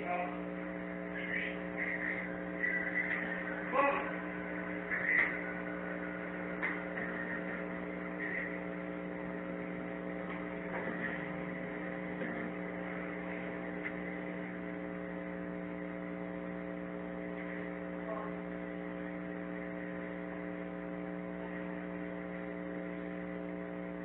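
Steady electrical hum with several evenly spaced overtones, the noise floor of a night-vision security camera's recording. A few faint knocks and brief noises come in the first several seconds, and once more about 18 seconds in.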